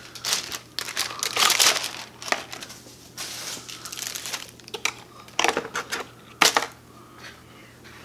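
Thin clear plastic packaging crinkling and crumpling in hands, in a string of short bursts, loudest about a second and a half in and again near the end.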